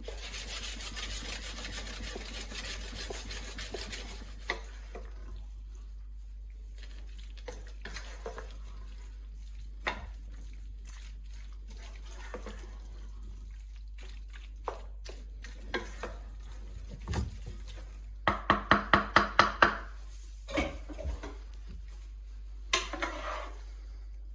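A wooden spoon stirring pasta in sauce in a frying pan: a hiss at the start, then scattered scrapes and knocks against the pan, with a quick run of about eight knocks a little after halfway.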